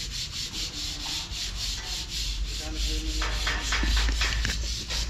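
Hand sanding: sandpaper rubbed back and forth over a surface in quick, even strokes, about five a second.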